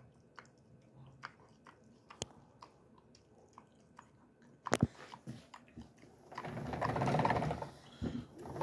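A dog chewing a treat: irregular sharp crunches and teeth clicks, the loudest a quick pair a little past halfway. About six seconds in, a louder rustling noise lasts about two seconds.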